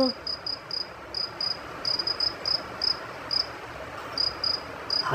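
Insect chirping: short high chirps, about three a second and unevenly spaced, with a brief gap near the middle, over a faint steady hiss.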